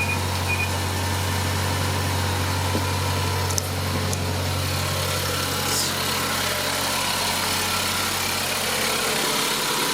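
2010 Mazdaspeed3's 2.3-litre turbocharged four-cylinder engine idling steadily, a constant low drone.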